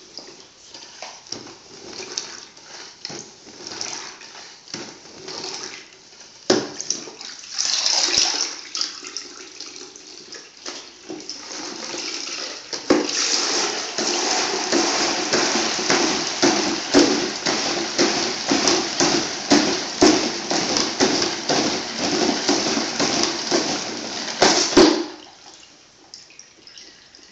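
Plastic spin mop bucket in use: first the mop head is worked in the water tray with knocks and splashing, then about halfway through it is spun in the spin basket, a loud whirring rush of water flung off with rapid clicking, which stops suddenly shortly before the end.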